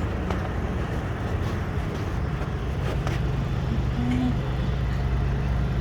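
Steady low engine rumble of a motor vehicle running, with a few faint clicks.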